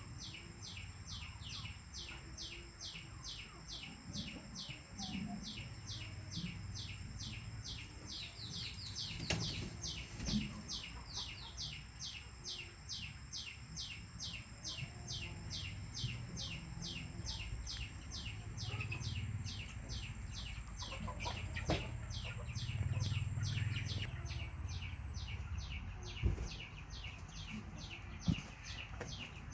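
High chirping calls repeated steadily a few times a second, with a faint steady high whine over them that stops near the end. A few soft knocks come through now and then.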